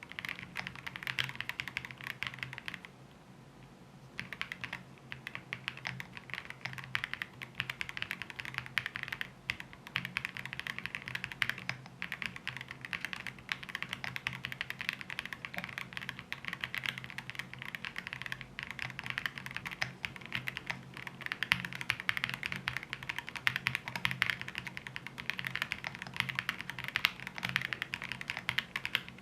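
Steady fast typing on a Cupid65 gasket-mount mechanical keyboard with Cupid switches and XMI Cat keycaps: a dense run of key clacks, with a pause of about a second roughly three seconds in.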